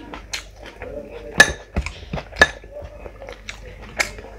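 Sharp clinks of dishes being knocked as food is handled by hand, with three loud ones about a second apart, the first two ringing briefly. Softer clicks and knocks come between them.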